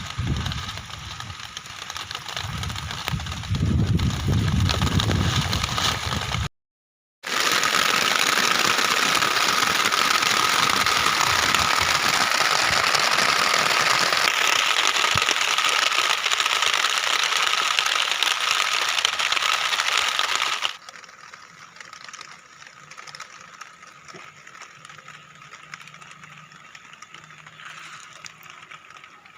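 Heavy rain pattering steadily on a tent, in edited stretches. The first stretch is mixed with low rumbling; after a brief cut to silence the rain comes through as a dense bright hiss, then drops to a much softer patter about two-thirds of the way in.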